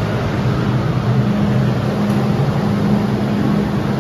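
MTR M-train standing at a platform with its doors open, its onboard equipment giving a steady low hum over a constant rushing noise.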